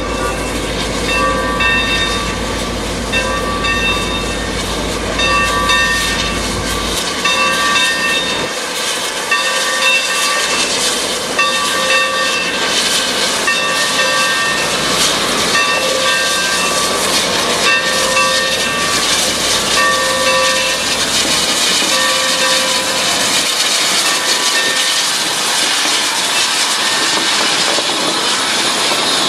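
ATSF 3751, a 4-8-4 steam locomotive, moving slowly with its bell ringing steadily about once a second over a continuous hiss of steam. The bell strokes fade late on while the hiss grows as the engine comes close.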